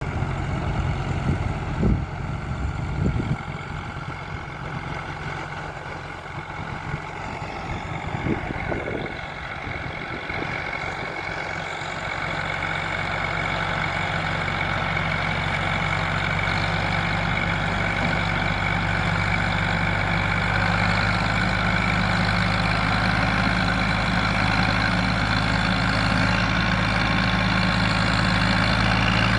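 Tractor diesel engine running steadily, with a few knocks in the first few seconds; from about twelve seconds in it grows louder and then holds a steady, heavier note.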